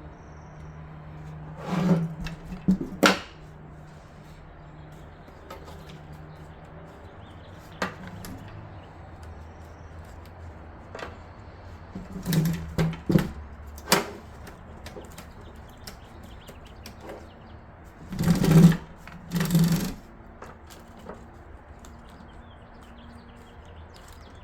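Scattered clicks, knocks and rustles from computer parts and cables being handled and fitted in a PC case. They come in short groups a few seconds in, around the middle and, loudest, near the end, over a faint steady low hum.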